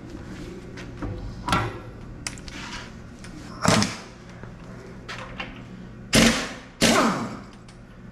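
Tools and engine parts being handled as an engine teardown begins: four loud bangs with smaller clicks and knocks between them, ringing in the shop, over a steady low hum.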